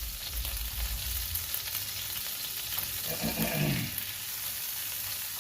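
Butter sizzling steadily as it melts in a hot frying pan.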